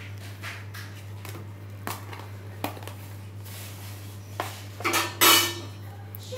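A steel spoon and metal cookware clinking and knocking together in a few separate strikes, the loudest cluster about five seconds in.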